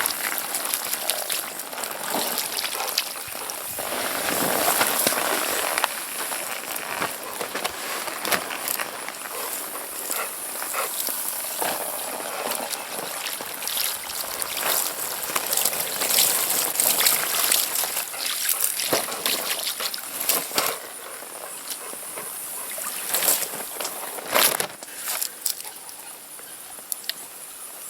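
Fleshing tool scraping meat and fat off a raw deer hide: an uneven rasping scrape with many irregular clicks and knocks.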